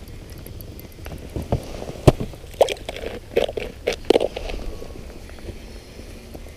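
Crunching and scraping in snow with a cluster of sharp clicks and knocks in the middle, as the ice flasher's transducer is pulled up out of the ice hole by its cord and set down on the snow.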